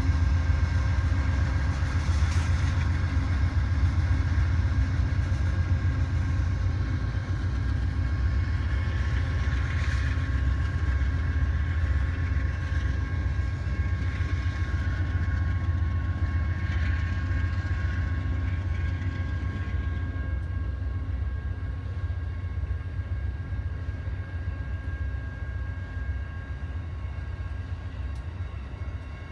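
A train rolling past with a steady deep rumble and a few brief squeals of metal, slowly getting quieter as it moves away.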